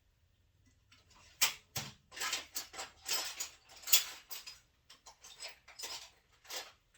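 Someone rummaging for a hand tool: a string of clinks, knocks and rustles of tools being picked up and moved about, starting after a short quiet moment.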